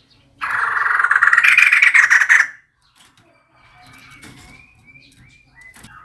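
Female white-crested laughingthrush giving a loud, harsh, fast chattering rattle lasting about two seconds, followed by faint thin whistled notes near the end.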